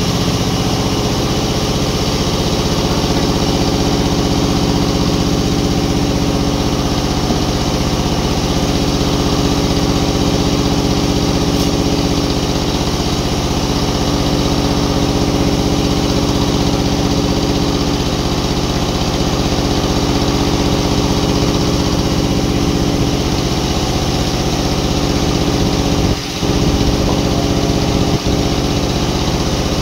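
Engine-driven sawmill machinery running steadily at a constant pitch, with a brief dip in level about 26 seconds in.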